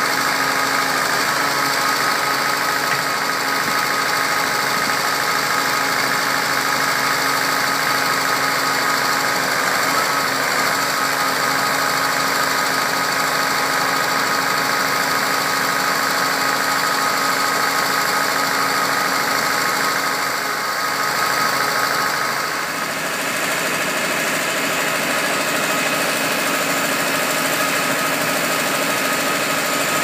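Lollini 500 mobile scrap metal baler shear running: its engine and hydraulics hold a steady note with a constant whine on top while the loading crane is worked. The sound dips briefly and shifts in character about three-quarters of the way through.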